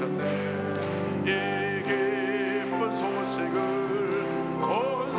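Gospel hymn: a singing voice with strong vibrato over sustained instrumental accompaniment.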